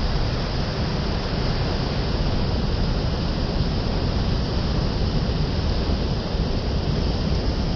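Steady rushing of the sea, an even noise heavy in the low end with no single wave standing out.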